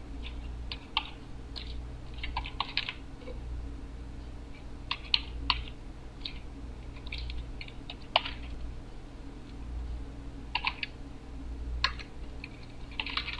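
Computer keyboard being typed on in short, irregular bursts of key clicks, over a steady low hum.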